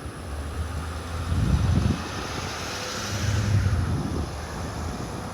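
Wind buffeting the microphone in two strong gusts, over a broad rushing noise that swells near the middle and fades.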